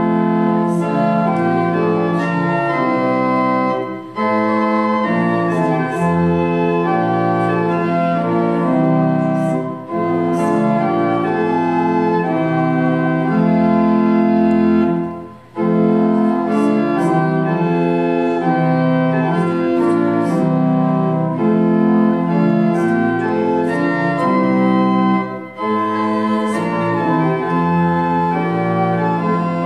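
Pipe organ playing a hymn in sustained chords, with a few people singing along. There are brief breaks between the hymn's lines, four in all.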